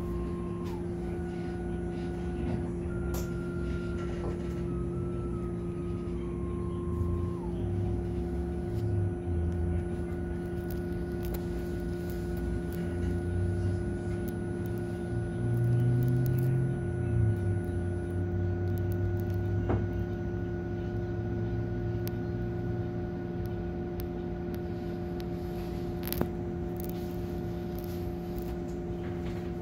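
MAN city bus driving, heard from on board: a steady hum with a whine that steps down in pitch a few times over the first eight seconds and then holds. A low rumble swells in the middle, and there is a single sharp click near the end.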